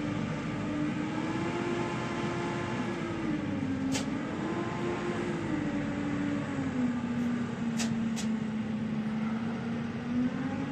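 Heavy engine running under load, its pitch rising and falling over several seconds as it revs up and down, with a few short sharp clicks; it is the machinery straining to pull a tractor trailer stuck in mud.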